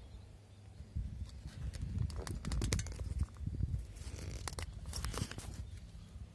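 Handling noise: a low rumble with scattered clicks and knocks as a phone is moved about against a rifle scope's eyepiece, starting about a second in and loudest around the middle.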